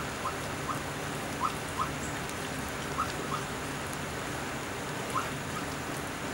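Weimaraner and Vizsla puppies lapping and chewing wet puppy mush from a steel pan: a steady wet pattering, broken by short rising squeaks from the pups about every second or so.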